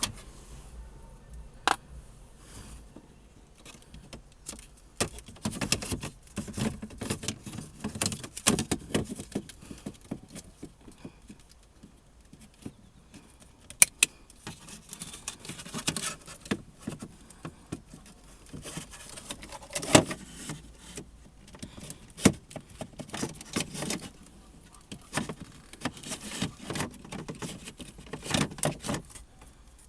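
Hands working on a van's interior trim and parts: short clicks, rattles and clatter of plastic pieces, screws and tools, coming in uneven spells with brief pauses. The sharpest clicks come about 2, 14, 20 and 22 seconds in.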